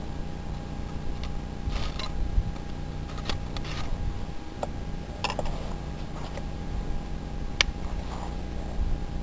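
Handling noise of a muzzle-loading carbine being readied to fire: a steady low rumble of the camera rubbing against clothing, with a handful of light clicks and knocks and one sharp click near the end.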